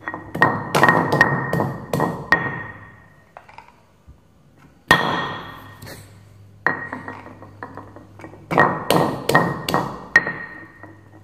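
Round stone pestle pounding pieces of galangal in a stone mortar to bruise them: runs of sharp knocks, many with a short high ring. The first run starts about a second in, a single hard strike falls near the middle, and a faster run comes near the end.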